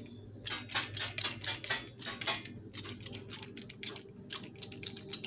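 Trigger spray bottle squeezed over and over, about three short hissing squirts a second, spraying degreaser onto a gas stovetop to loosen baked-on grease.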